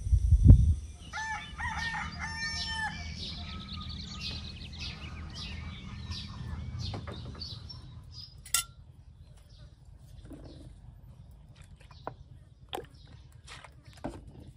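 A few low thumps, then a rooster crows once. After that come several sharp clinks of a metal spoon against a ceramic bowl.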